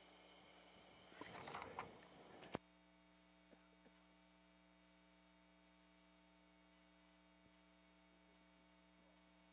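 Near silence with a steady low electrical hum. A brief rustling noise about a second in ends in a sharp click, after which only the hum remains.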